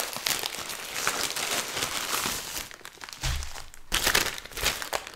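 Plastic mailer bag crinkling and tearing as it is ripped open and the wrapped contents pulled out, with a soft thump about three seconds in.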